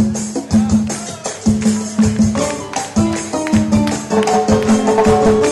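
Latin dance band playing: horns, bass and hand percussion over a steady quick beat, with short repeated bass notes.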